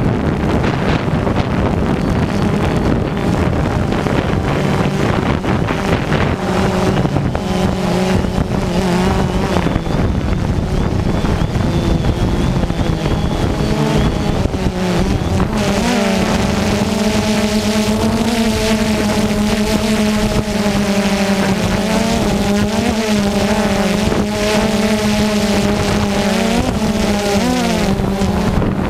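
DJI Phantom 2 quadcopter's motors and propellers humming in flight, heard close up from the camera mounted on the drone. The pitch wavers and shifts with the throttle, and the hum turns steadier and stronger about halfway through.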